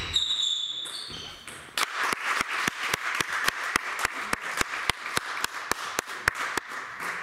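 Hand clapping from a few spectators, steady sharp claps at about four a second, starting about two seconds in. Just before it, a short high squeak.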